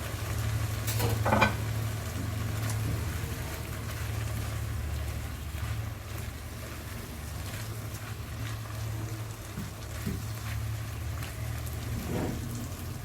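Steady low hum of kitchen equipment running under a pan of shrimp cooking on the stove, with a few light knocks of utensils about a second in and again near the end.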